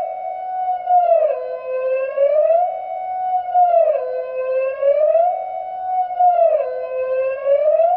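Synthesized two-tone alarm siren, gliding smoothly between a higher and a lower pitch and holding each for about a second, over and over.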